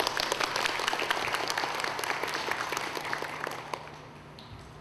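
Audience applauding in a hall: dense clapping that thins out and dies away about four seconds in.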